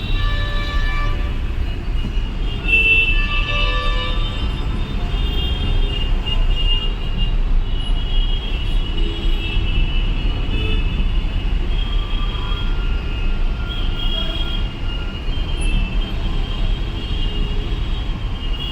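Busy, congested street traffic: a steady low rumble with other vehicles' horns tooting again and again, several short honks close together in the first few seconds.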